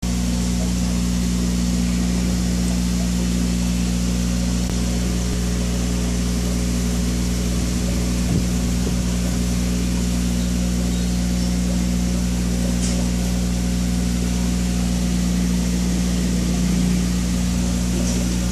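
Aquarium air pump running with a steady electrical hum, driving the sponge filters, with a faint hiss of air over it.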